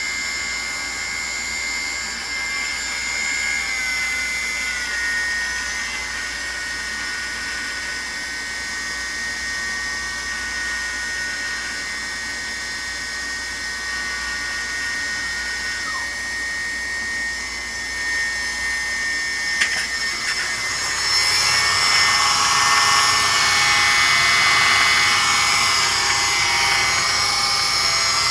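Hobby King Nova quadcopter's electric motors and propellers spinning with a steady whine whose pitch steps slightly, one tone dropping away about 16 s in. About 20 s in there is a sharp click, after which the whirr grows louder and fuller as the motors speed up.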